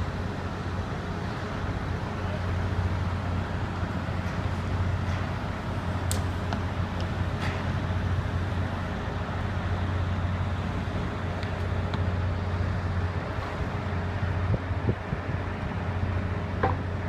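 Steady low engine hum of construction machinery running, with a few faint scattered clicks and knocks.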